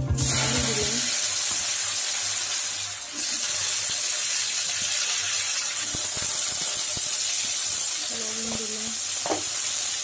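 Hot mustard-style oil sizzling steadily in a steel wok with nigella seeds, then raw potato sticks going in and frying in it.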